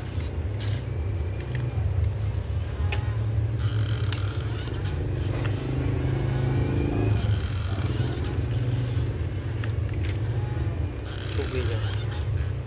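Excavator working in sand: its motor runs steadily with a low hum, and about four times short scraping rushes sound as sand is dug and dumped. Around the middle a rising whine is heard as it works under load.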